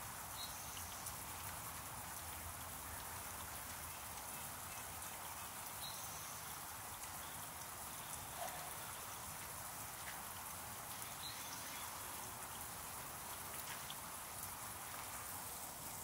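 Small backyard water fountain splashing: a steady patter of falling water drops, with faint ticks scattered through it.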